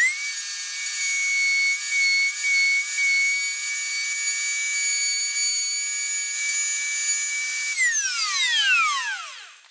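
Router on a router table starting up and running with a steady high whine while its bearing-guided trim bit cuts a slot in wood. About eight seconds in it is switched off and the whine falls in pitch as the motor spins down.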